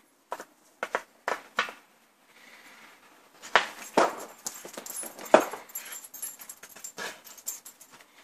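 A dog barking in short, sharp barks: a few in the first two seconds, and louder ones from about three and a half to five and a half seconds in.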